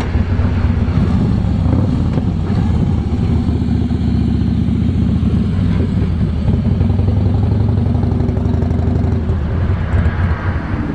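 Cruiser motorcycle engine running at low speed as the bike rides up and past, the note rising and falling a little with the throttle.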